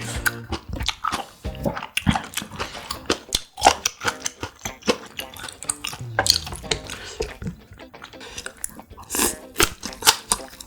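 Close-miked chewing of grilled pork intestine (makchang): wet, sticky mouth sounds with many quick sharp clicks and smacks.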